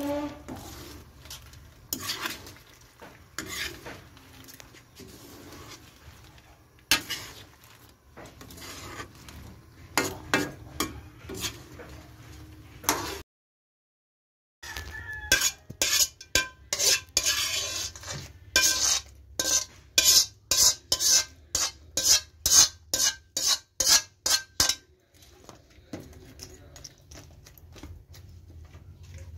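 Metal ladle stirring shrimp in a metal pan, scraping and knocking against the pan. After a short break it strikes the pan in a fast, regular run of clanks, about two a second, then goes quieter near the end.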